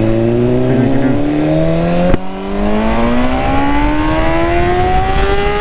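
2016 BMW S1000RR's inline-four engine accelerating, its pitch climbing steadily. About two seconds in there is a sharp crack and the pitch drops as it shifts up a gear. It then climbs again until another upshift at the very end.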